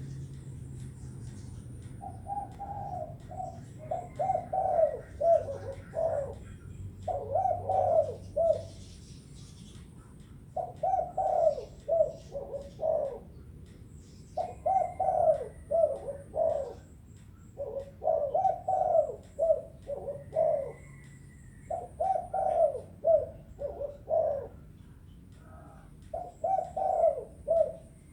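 Spotted dove cooing: phrases of several quick, low coos, repeated with a pause of about a second between phrases. The first phrase begins about two seconds in.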